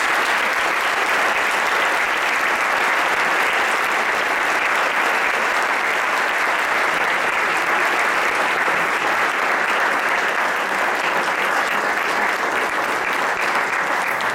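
An audience applauding: one long, steady round of clapping.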